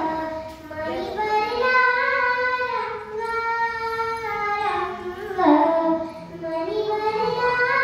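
A young girl singing a Marathi devotional song (pada) alone into a microphone, holding long notes that glide from one pitch to the next.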